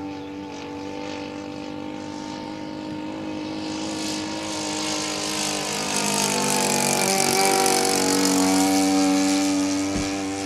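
Model aircraft engine of a large radio-controlled Topflite F4U Corsair running steadily in flight. It grows louder as the plane passes, and its pitch drops as it goes by, about two-thirds of the way in.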